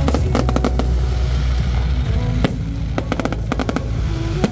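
Aerial fireworks shells bursting and crackling: a rapid run of pops at the start, a single bang about halfway, another run of pops around three seconds in and a sharp bang at the end, over background music.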